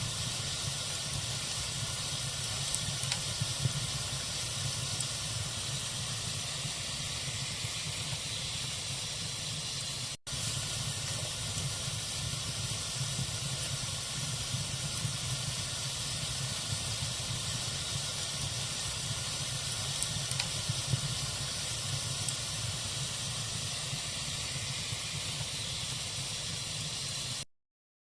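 Log fire burning in a fireplace: a steady hiss with occasional small crackles and pops. The sound drops out for an instant about a third of the way in and cuts to silence shortly before the end.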